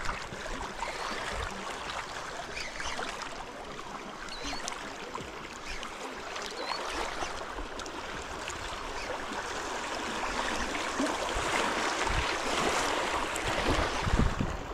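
Small waves lapping along a reservoir shoreline: a steady rush of water. Wind gusts buffet the microphone with low rumbles, mostly near the end.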